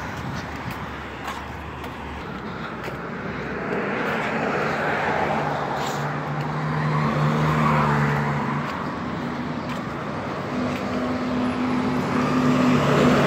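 Street traffic passing, with the steady hum of a heavy vehicle's engine setting in about four seconds in and growing louder toward the end.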